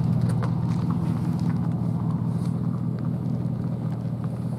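An engine running steadily, a low even hum that holds one pitch, with a few faint ticks over it.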